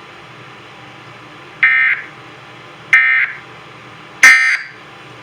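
Emergency Alert System end-of-message data bursts: three short, loud bursts of digital SAME tones about 1.3 seconds apart. They signal that the alert has ended.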